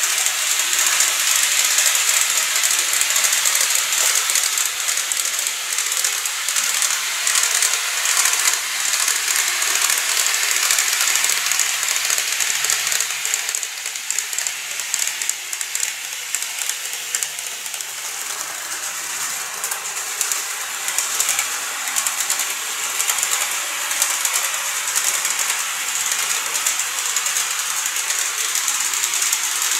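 N-gauge model trains running on plastic viaduct track: a steady high hiss from the wheels and motor, with many light clicks over the rail joints.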